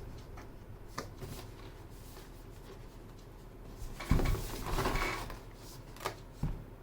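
A few isolated sharp clicks with a short burst of clatter about four seconds in, from the Skyloong SK61 mechanical keyboard with Gateron optical switches being typed on or handled.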